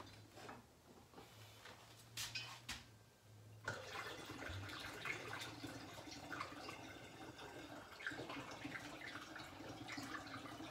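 Water poured through a funnel into a glass jug of honey, a steady trickle that starts about four seconds in, after a few faint clicks.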